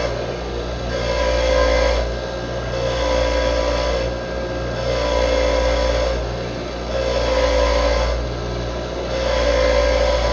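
Power tool running steadily while a metal fitting is pressed against it to clean it off, the grinding noise swelling and easing about every two seconds as the part is worked.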